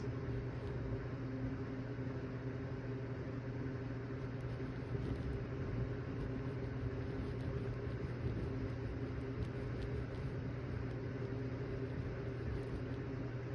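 A steady low mechanical hum that holds the same pitch and level throughout, like a motor running.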